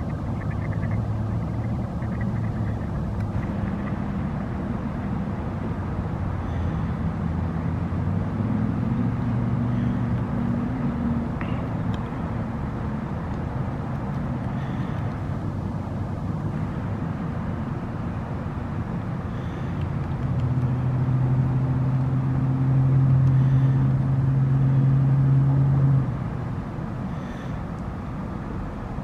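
Steady low rumble of road traffic with the hum of passing engines. About twenty seconds in, a louder, even engine hum comes in and cuts off suddenly some six seconds later.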